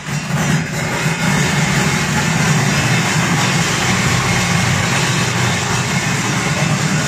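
Raisin sorting machine running: a steady mechanical hum with an even hiss over it, without a break.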